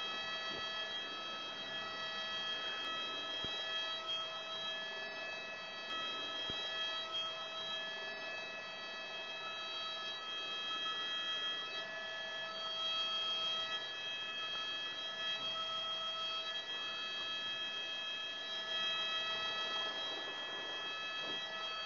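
Airbus H125 (AS350B3e) helicopter heard inside the cockpit in a hover taxi: a steady high whine of several tones together from the turboshaft engine and main gearbox, rising and falling slightly in strength.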